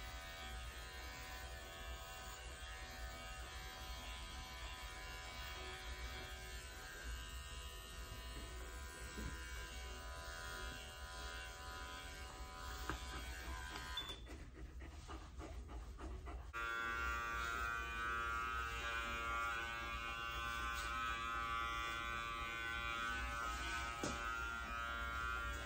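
Electric dog clipper running steadily as it is worked through a terrier's coat. It stops for about two seconds a little past halfway, then runs again, a little louder.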